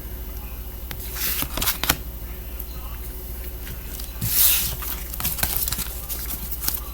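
Tarot cards being handled and shuffled: soft scattered taps and rustles, with a louder rushing sound about four seconds in, over a steady low hum.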